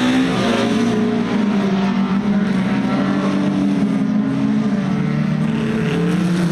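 Several rallycross cars running hard through a corner together, their engine notes overlapping and rising and falling in pitch over the hiss of tyres on loose dirt.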